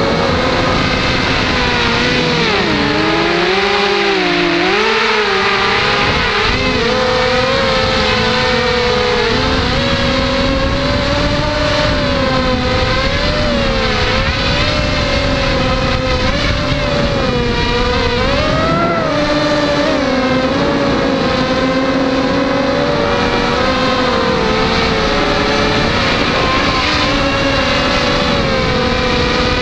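Six Tiger MN1806 2300kv brushless motors driving GemFan 5x3 two-blade propellers on a hexacopter in flight, recorded from a camera on the craft. The buzz is loud and steady, and its pitch wavers up and down with the throttle, dropping lower for a couple of seconds about three seconds in.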